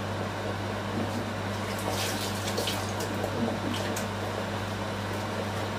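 Pot of catfish and plantain pepper soup simmering on the stove: steady bubbling with a few soft pops, over a constant low hum.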